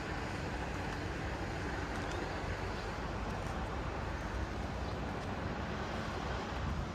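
Steady outdoor background rumble of road traffic, continuous and even with no distinct events.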